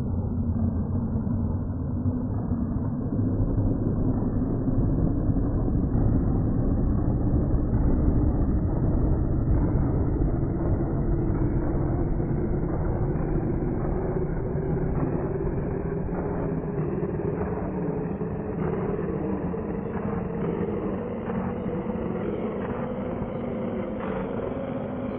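A recording of a man coughing, pitch-shifted far down so it sounds like a deep rumble. It climbs gradually in pitch as the clip repeats on each step of a rising scale.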